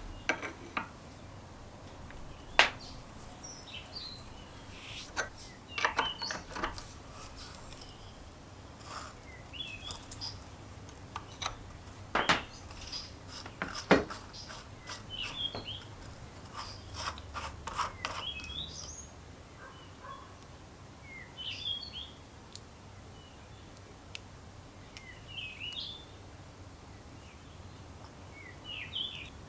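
Hand tools and small parts of an SP-35A fog-machine solenoid pump being handled and worked on: scattered sharp clicks and taps, the loudest around a third and halfway through, with short high chirps in between.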